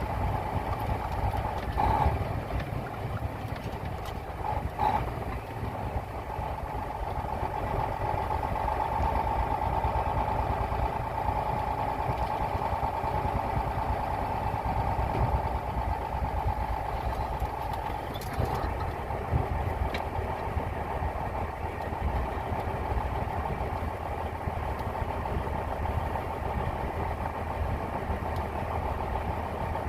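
Grain truck's diesel engine running steadily, with a few brief knocks.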